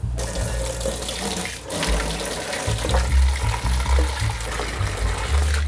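Kitchen tap running into a stainless-steel sink and pot, a steady rush of water with a brief break about a second and a half in.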